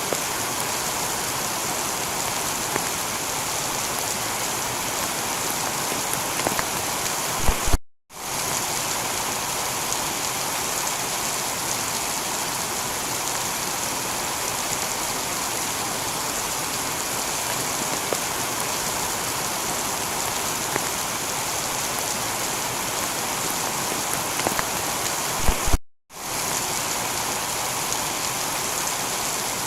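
Heavy rain falling on a tiled roof, a steady even hiss with scattered drop ticks. Twice, about 8 and 26 seconds in, a few sharp clicks come just before the sound cuts out for a split second and then resumes.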